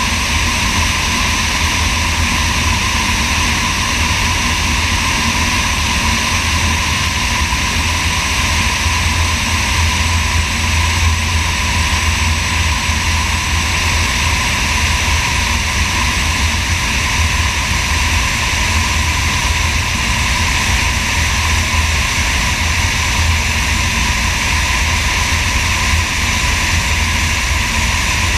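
Sonex light aircraft's engine and propeller running steadily in flight, heard from a camera mounted outside below the wing, with wind noise over it.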